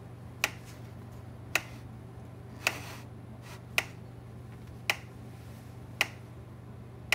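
Gallagher M1500 plug-in electric fence energizer ticking with each output pulse, seven sharp clicks about a second apart over a steady low hum. The even beat shows the repaired unit firing normally.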